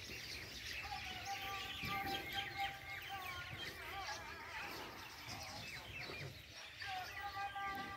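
Many small birds chirping busily in the background, with a faint, drawn-out call from farther off about a second in and again near the end.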